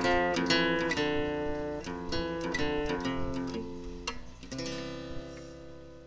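Acoustic guitar music, plucked and strummed notes, fading out gradually toward the end.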